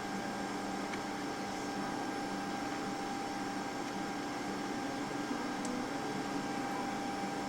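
Steady machine hum holding a few fixed tones, with a couple of faint ticks.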